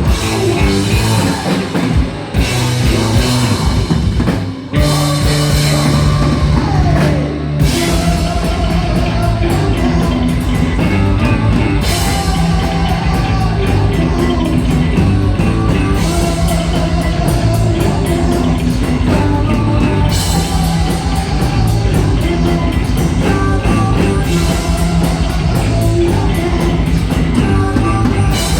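Speed metal band playing live: distorted electric guitars, bass and drums. After a few brief stops and a held low chord in the first several seconds, the band settles into a fast, even chugging rhythm with the guitar and rapid bass drums playing the same fast pattern.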